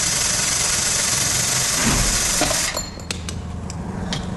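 Pneumatic impact wrench running for about two and a half seconds, then stopping, followed by a few sharp metallic clicks.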